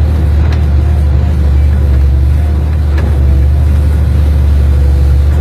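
Excavator's diesel engine running with a steady low drone, with a faint steady whine over it and two light clicks, about half a second in and about three seconds in.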